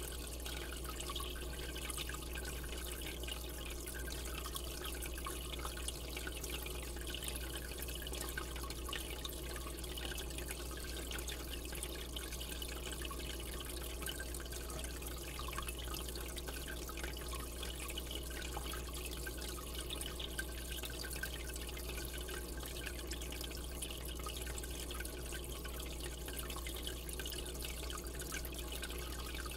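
Steady trickling and bubbling of water circulating in a saltwater aquarium, with a low steady hum underneath.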